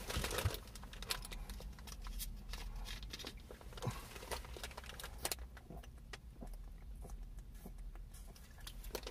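Faint scattered clicks, taps and rustles of small handling over a low steady hum, with no speech.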